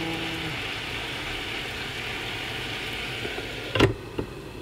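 Jenniferoom electric egg steamer steaming, a steady hiss of water boiling under the eggs. Near the end a sharp click cuts it off and the hiss drops away, followed by a second lighter click.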